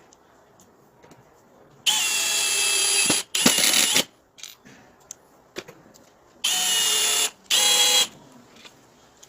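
Handheld electric power tool run in four short trigger bursts, each a steady whine that starts and stops abruptly. There are light clicks and knocks in the pauses.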